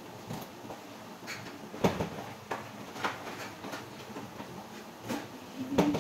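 Scattered light knocks and clatters of someone moving about a kitchen: cupboard or door handling and footsteps on a hard floor, with the sharpest knocks about two seconds in and just before the end.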